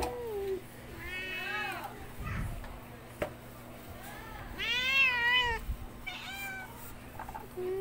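Kittens meowing: three separate calls that rise and fall in pitch, the loudest and longest about five seconds in.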